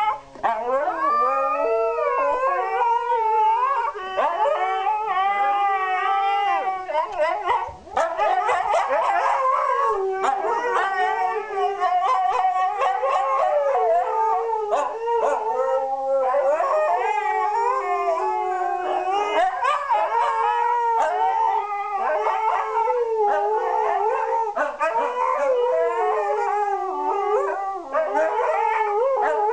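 Two Siberian huskies howling together in a long duet, their wavering, overlapping howls sliding up and down in pitch with only brief breaks for breath.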